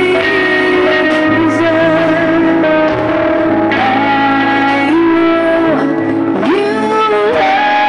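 Live worship band playing a song on keyboard and electric guitars, with a woman singing the melody in long held notes over a moving bass line.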